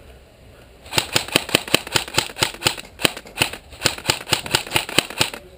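Airsoft gun firing a rapid string of sharp shots, about six a second, starting about a second in and stopping shortly before the end.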